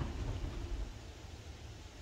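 Cat exercise wheel rumbling low as it rolls under a walking cat, easing off about a second in as the cat slows.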